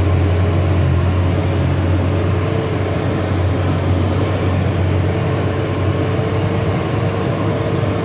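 Vehicle engine and tyre noise heard from inside the cabin while driving on a snow-covered road: a steady, loud low drone.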